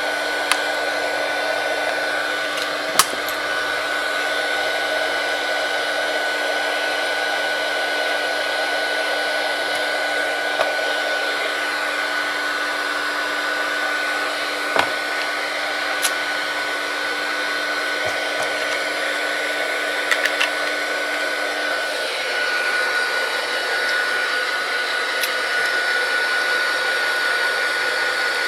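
Heat gun blowing steadily, warming the tablet to soften the adhesive under its glass; its hum changes about three-quarters of the way through. A few small clicks from tools against the tablet.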